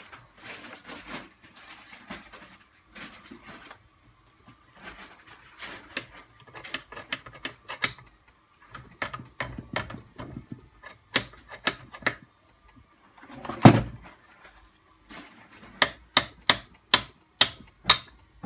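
Metal tapping and clinking as the piston pin of a Vertemati 570 engine is driven out with a brass drift, growing from faint handling noise into sharp clicks and knocks. One heavy thump comes about two-thirds of the way through, then a run of sharp, evenly spaced taps about twice a second near the end.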